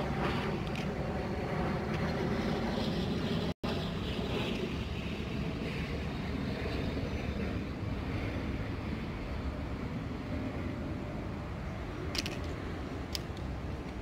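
Steady low rumble of distant road traffic, which cuts out for an instant about three and a half seconds in. A few light clicks sound near the end.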